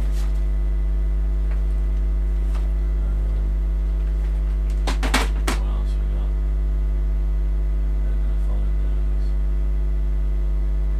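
Loud, steady electrical mains hum, a low buzz with a long ladder of overtones. About five seconds in comes a short clatter of three sharp knocks as things are moved about while rummaging on shelves.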